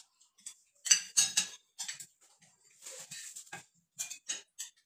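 Cutlery clinking and scraping on dinner plates: a string of short, sharp taps and clicks, with a softer scrape a little past the middle.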